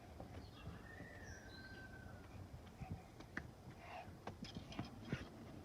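Quiet garden sounds: faint scattered taps and rustles, with a bird's thin whistled call that falls slightly about a second in, and a few short high chirps later.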